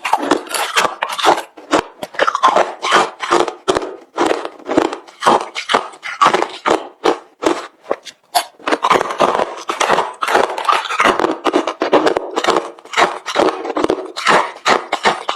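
Refrozen crushed ice being chewed close to the microphone: a rapid run of hard crunches, several a second, with a short pause about eight seconds in.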